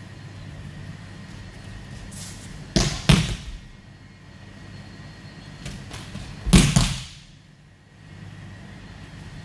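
Aikido breakfalls on a tatami mat: a quick double thud about three seconds in and a louder single one about six and a half seconds in, each after a brief swish of the keikogi and hakama as the uke is thrown.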